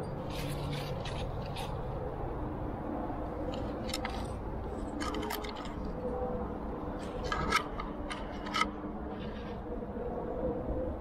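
Light metallic clinks and scrapes from a lead climber's trad rack of carabiners and protection, in short scattered bursts, with two sharper clinks in the second half.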